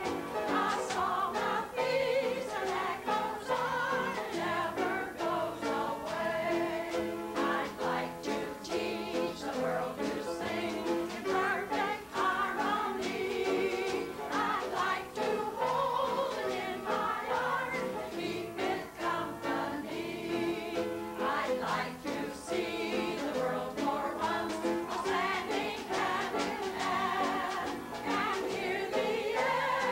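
A group of older women singing a song together in chorus, with piano accompaniment.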